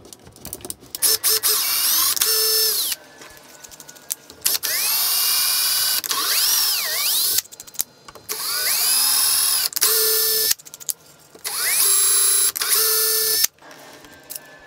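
Cordless drill-driver running in four bursts of two to three seconds each, its motor whine rising and falling in pitch with the trigger, as it drives the machine screws of a stepper motor mount. A few short clicks come between the runs.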